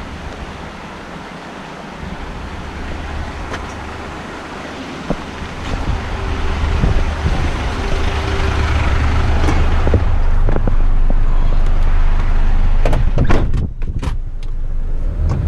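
Front-lift garbage truck's diesel engine idling steadily, growing louder over several seconds as it is approached, with a run of sharp knocks and clicks near the end.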